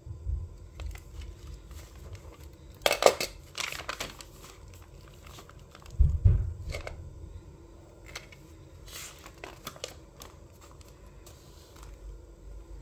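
Paper pages of a handmade notebook being turned and handled, several short rustling, crinkling bursts. Two low thumps, one near the start and a louder one about six seconds in, from the book or light being bumped.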